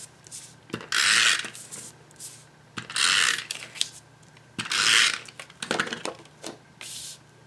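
Snail adhesive tape runner drawn across the back of a paper panel in several short strokes, each a half-second rasping zip with a ratcheting click, about every two seconds.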